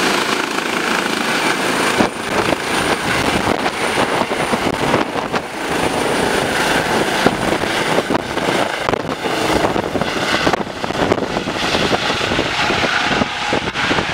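Eurocopter EC135 twin-turbine helicopter lifting off and climbing away overhead: loud, steady rotor and engine noise. A high turbine whine fades about halfway through as it climbs.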